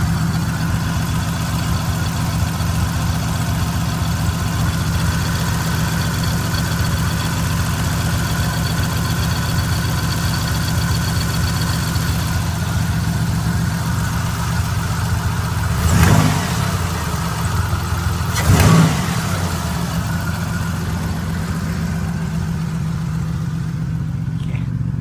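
1995 Dodge Spirit's V6 engine running steadily at idle, with two short louder surges about two seconds apart past the middle. The engine is due for new head gaskets for a suspected head-gasket failure.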